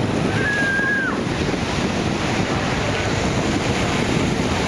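Hawker Hurricane's Rolls-Royce Merlin V12 engine droning steadily as the fighter passes overhead, mixed with wind buffeting the microphone. A short high whistle-like tone sounds about half a second in and dips at its end.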